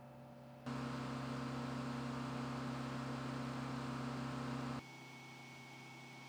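Steady mechanical hum with a low droning tone. About a second in it jumps to a louder, fuller hum, then about three-quarters of the way through it drops suddenly back to a quieter hum with a thin high whine.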